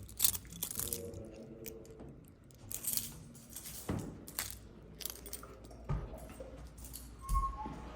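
Scattered knocks and light metallic clinks, several seconds apart, over a low background hum.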